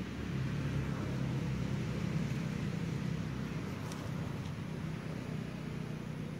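An engine running steadily, a low drone with a slight shift in pitch about a second in.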